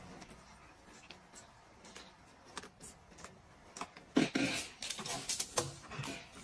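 Close-miked eating sounds from a person eating roast lamb ribs by hand: faint chewing and small clicks at first, then a run of louder mouth smacks and rustles from about four seconds in.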